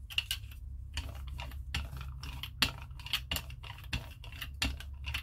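Brayer rolling acrylic paint out across a gel printing plate, in repeated back-and-forth strokes about two a second, over a steady low hum.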